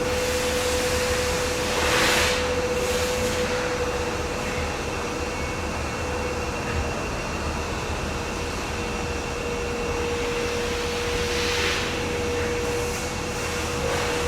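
A construction machine running steadily: a constant whine over a broad mechanical noise, with short hissing swells about two seconds in and again near the end.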